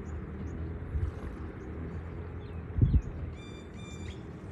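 Wind rumbling on the microphone, with heavy thumps about a second in and again near the middle. Two short high-pitched tones sound near the end.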